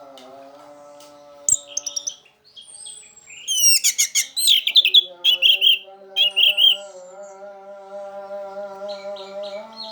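Orange-headed thrush in full song: a varied, rapid run of sharp chirps, trilled notes and falling whistles, busiest in the middle, over a steady low humming tone.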